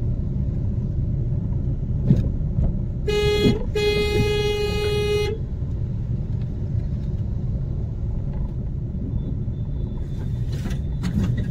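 A vehicle horn sounds twice, a short toot and then a blast of about a second and a half, over the steady low rumble of engine and road noise inside a moving car.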